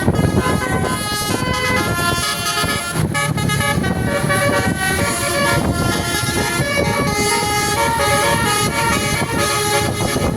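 Basuri multi-tone 'telolet' bus horn playing a melody, its notes stepping quickly from pitch to pitch, over a steady low noise.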